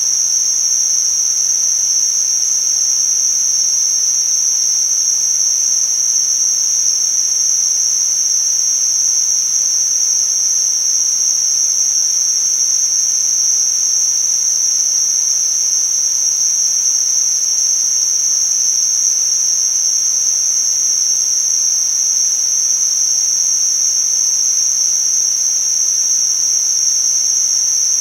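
Tinnitus-masking noise: a steady, high-pitched hiss held to a narrow band of pitch, over a much fainter wide hiss, unchanging in level.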